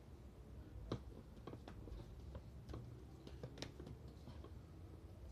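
Faint, irregular soft clicks and pats of hands pressing marinated pork onto a trompo (vertical al pastor spit) to shape it, over a low steady hum.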